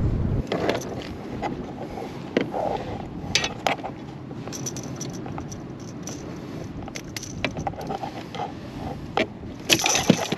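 Scattered clicks, scrapes and light metallic rattling of fishing gear and a landing net being handled in a kayak while a hooked fish is dealt with, busiest just before the end.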